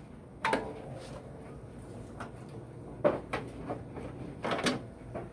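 Chevy Blazer's hood being opened: a sharp metal clunk about half a second in, with a brief ring after it, then a few softer knocks.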